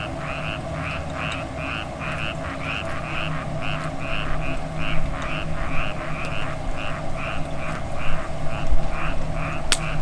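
A frog calling in a steady rhythm, about two and a half croaks a second, over a steady low hum. A couple of sharp clicks come near the end.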